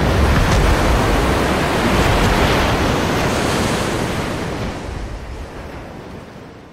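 Ocean surf: breaking waves make a steady rushing wash that fades away over the last few seconds.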